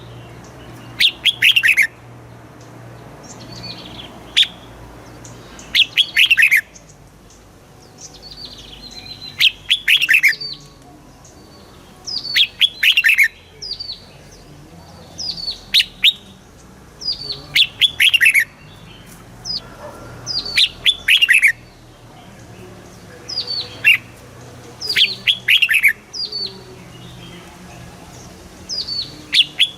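Red-whiskered bulbul singing: short phrases of several quick, falling whistled notes, repeated every one to two seconds with brief pauses between them.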